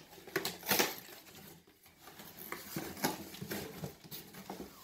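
Cardboard shipping box being opened and unpacked by hand: flaps pulled back and contents shifted, making irregular rustles, scrapes and taps, with a couple of sharper ones in the first second.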